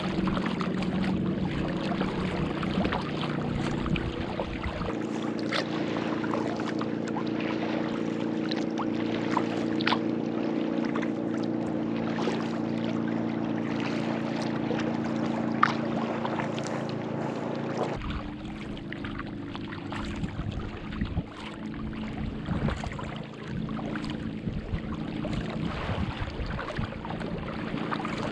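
Kayak paddling on lake water: the paddle dipping, splashing and dripping again and again. Under it runs a steady low hum of several held tones that changes abruptly about five and eighteen seconds in.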